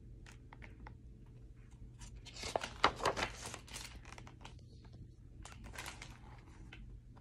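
Paper pages of a picture book being turned, rustling in two bursts: a louder one about two and a half to three and a half seconds in, and a softer one around six seconds in, with a few small clicks of the book being handled.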